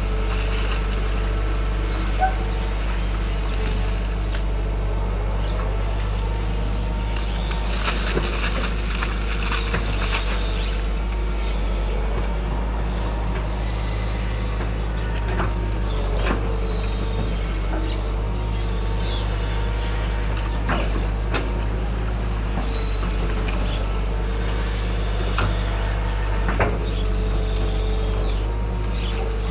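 Excavator's diesel engine running steadily, a constant low hum with a wavering higher tone above it and occasional short knocks as the machine works, and a brief rush of noise about eight seconds in.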